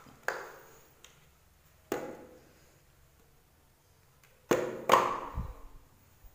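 A hollow white plastic electrical box being handled and knocked against a ceramic tile floor: four sharp knocks, the loudest two close together about four and a half seconds in. Each knock echoes briefly in a small bare room.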